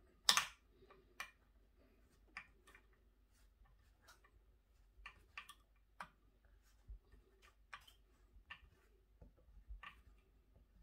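Light, irregular clicks and ticks of small metal strap-lock hardware handled and turned by fingers at the edge of a guitar body, with one louder click just after the start.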